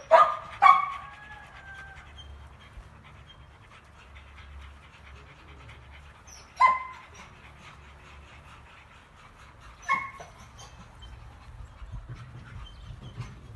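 Dogs at play: short, high barks, two in quick succession at the start, one about six and a half seconds in and another near ten seconds, with panting between them.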